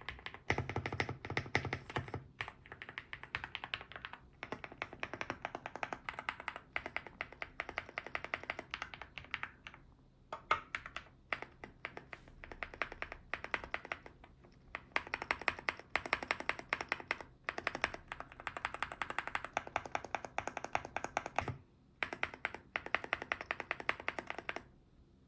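Fast typing on an EPOMAKER Galaxy70 aluminium mechanical keyboard with HUANO Blossom Odyssey switches: a dense run of keystroke clicks in several bursts with short pauses, stopping just before the end.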